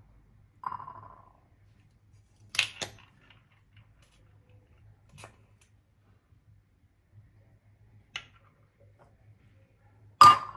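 Eggs being cracked on a ceramic bowl, with a fork clinking against it. A short ringing clink comes about a second in, then sharp knocks and clicks every few seconds. The loudest knock, with a brief ring, comes near the end.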